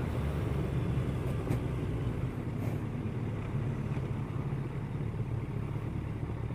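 Kawasaki ER-6n parallel-twin motorcycle engine running steadily while riding, with wind and road noise, heard through a helmet-mounted camera.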